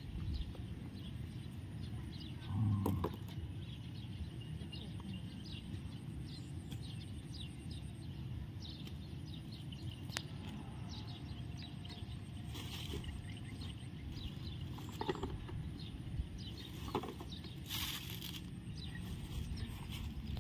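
Outdoor ambience: a steady low rumble with small birds chirping throughout, a thump about three seconds in, and a few brief knocks and rustles later.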